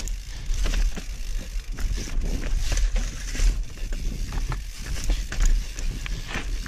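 YT Capra enduro mountain bike riding down a rocky dirt trail: tyres crunching over rock and gravel, with many quick rattles and clatters from the bike, over low wind buffeting on the helmet camera's microphone.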